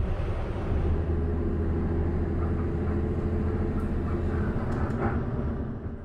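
City bus running as it sets off, heard from inside the passenger cabin: a steady low hum with road and cabin noise over it.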